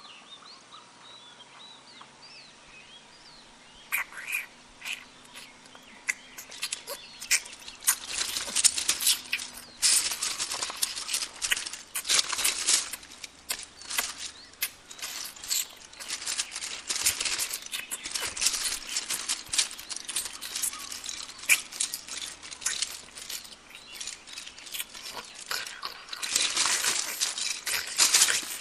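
Plastic Lego bricks clattering and clicking against one another in quick, irregular bursts. The clatter starts about four seconds in and thickens to a dense rattle near the end, with faint bird chirps before it.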